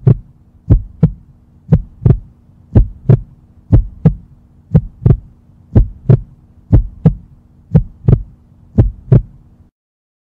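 Heartbeat sound effect: a steady double 'lub-dub' thump about once a second, over a faint low hum. It stops abruptly near the end.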